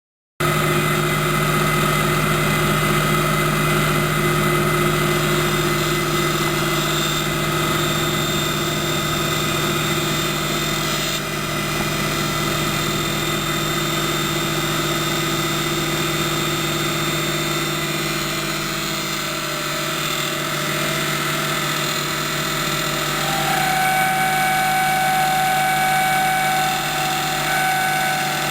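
Hapfo copy lathe running with a steady machine hum; a higher whine joins in about three-quarters of the way through.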